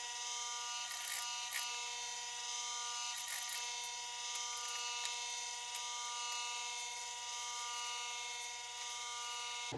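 Singer industrial sewing machine running with a steady buzzing hum while stitching two upholstery panels together.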